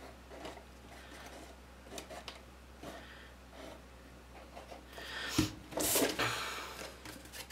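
Cardstock pieces being handled and glued by hand: faint rustles and small taps, then a sharp knock about five seconds in, followed by a short, louder rustle.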